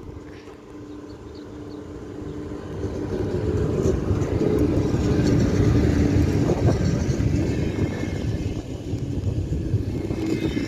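A VR Sr1 electric locomotive hauling double-deck passenger coaches rolls slowly past close by. The rumble of wheels on rail swells as the locomotive approaches, carrying a steady hum, and is loudest about four to six seconds in as the locomotive passes. The coaches then roll by, with a faint high squeal near the end.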